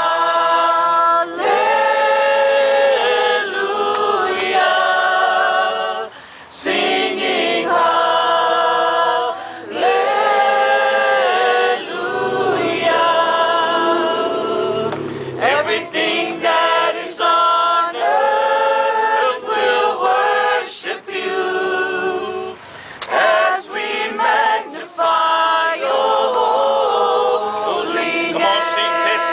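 A group of men and women singing a worship song together without instruments, in phrases of held notes with short breaks between them.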